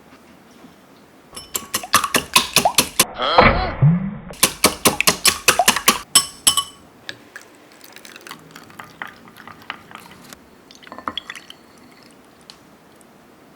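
Eggs being beaten in a bowl: a quick run of clinking strokes, about five or six a second, broken partway by a short pour of liquid that rises in pitch, then a few lighter taps.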